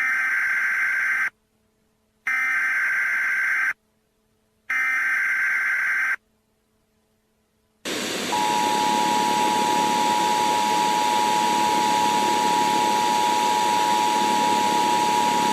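Emergency Alert System tones: three bursts of SAME header data, a harsh digital warble each about a second and a half long with about a second of silence between them. About eight seconds in a static hiss starts, and the EAS two-tone attention signal then sounds steadily over it.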